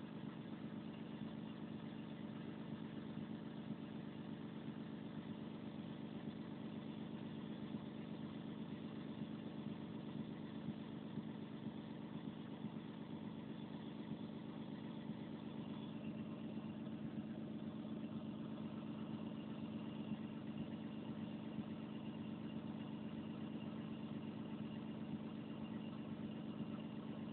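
Diesel engine of a Volvo 360 excavator idling steadily, an even drone that does not change.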